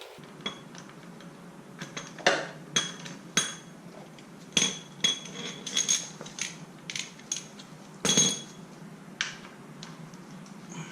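Irregular metallic clinks and clicks of a socket wrench on a motorcycle's oil drain plug as the plug is put back in and tightened. Some clinks ring briefly, and the loudest comes near the end.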